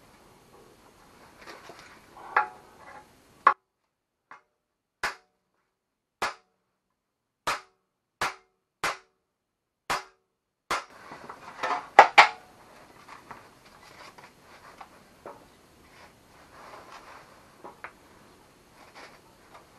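Small hammer tapping a part into place on a new Yamaha Grizzly 660 exhaust muffler: a series of about a dozen sharp single strikes roughly a second apart, the two loudest in quick succession just past the middle, then rustling and handling of the parts.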